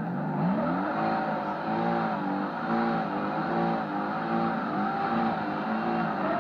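Car engine revving up and down over and over, about twice a second, over a steady haze of tyre and road noise.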